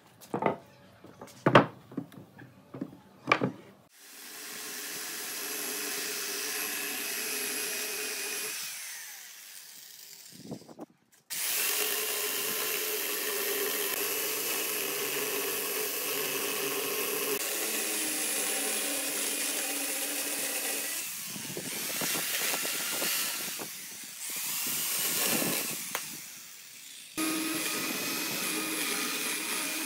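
A few sharp wooden knocks in the first seconds, then a small one-handed Amaxtools electric chainsaw running and cutting through a tree branch in several long stretches, with brief pauses between cuts.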